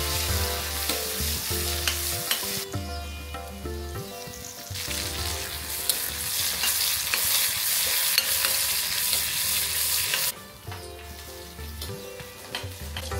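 Sliced onions and curry leaves sizzling and frying in hot coconut oil in a kadai, stirred with a metal ladle that clicks against the pan now and then, for a Kerala-style tempering. The sizzle eases off for a couple of seconds, comes back strong about five seconds in, and drops away near the end.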